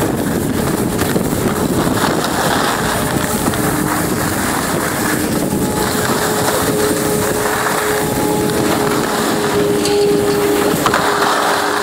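Wind rushing and buffeting over a phone microphone, a loud steady noise. A faint steady hum of a couple of tones joins about three seconds in.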